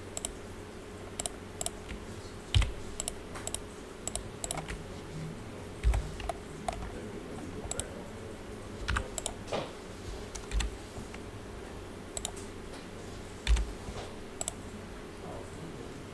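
Computer keyboard and mouse clicking in irregular scattered taps, with a few louder knocks, over a faint steady hum.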